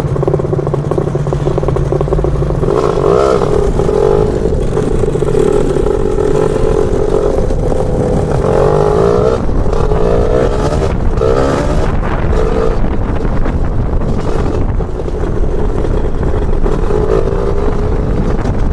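Lambretta two-stroke scooter engine, a BFA 325-type, running on the move, its note rising and falling several times as the throttle is opened and closed, over a low rumble of wind on the microphone.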